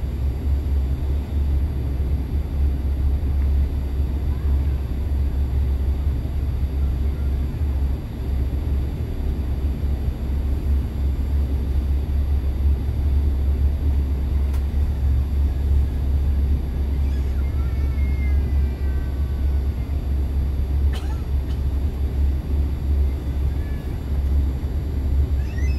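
Steady cabin noise of a CRJ900 airliner descending on final approach: a low rumble of air and tail-mounted CF34 turbofans, with a faint steady high whine.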